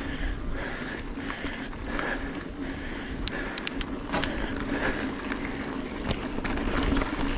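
Mountain bike rolling over a dirt singletrack: steady tyre and wind noise on the microphone, with sharp clicks and rattles from the bike over bumps, a quick run of them about three to four seconds in and a couple more near the end.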